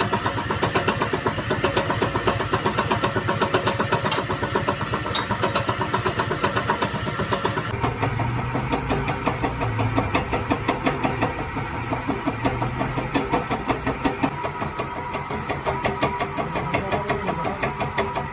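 A machine running with an even, rhythmic pulse and a thin high whine. About eight seconds in the whine drops in pitch and the pulsing grows stronger, at about four beats a second.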